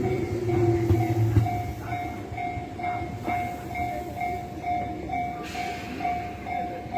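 Japanese level-crossing alarm ringing its electronic ding about twice a second, steady throughout, while a Tobu Tojo Line train rumbles past. The train's rumble fades about a second and a half in.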